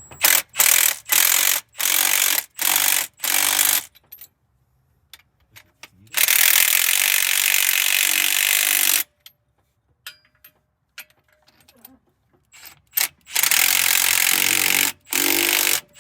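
Impact wrench snugging down head bolts on a Detroit Diesel 8V92 cylinder head. It fires in about six short bursts, then runs for about three seconds, then fires in a few more bursts near the end.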